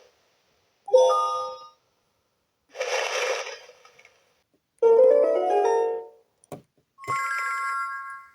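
A LeapFrog 100 Words talking book playing short electronic sound effects through its small speaker as its pictures are pressed one after another. There are four separate effects with gaps between them: a chime, a hissing noise, a quickly rising run of notes and a ringing tone. A sharp click comes just before the last one.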